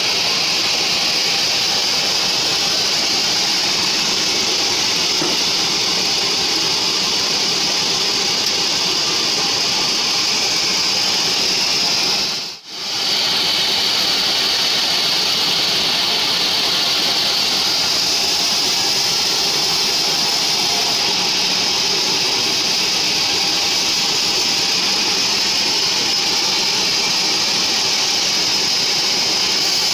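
Band sawmill ripping a log lengthwise: a loud, steady high-pitched cutting hiss over the running saw motor. The sound cuts out for a moment about twelve seconds in, then the same steady sawing resumes.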